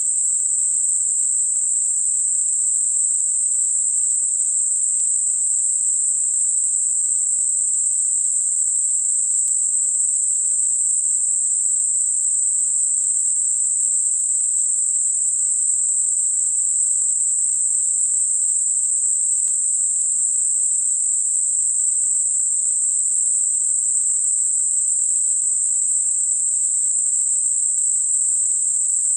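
Synthetic narrow-band noise centred at 8 kHz, a steady high-pitched hiss that peaks smoothly at 8 kHz and rolls off across about 6 to 10 kHz, with nothing below it; made as a tinnitus masker.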